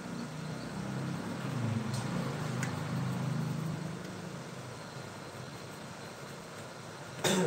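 Low mechanical rumble that grows louder over the first few seconds and then eases off, with a couple of faint clicks and a sharp knock near the end.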